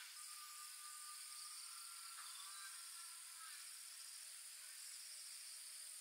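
Crickets and other insects chirring steadily, faint, with a thin high tone that fades out about halfway through.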